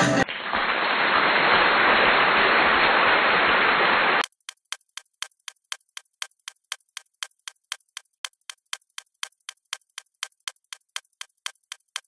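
Clock-like ticking sound effect, crisp and evenly spaced at about three ticks a second, beginning about four seconds in after a few seconds of loud steady hiss-like noise.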